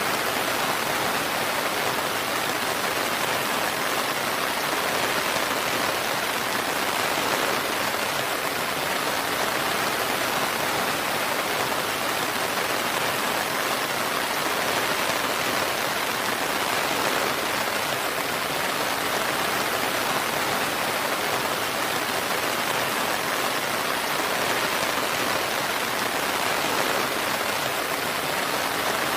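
Steady rain falling, an even hiss with no thunder or distinct drips.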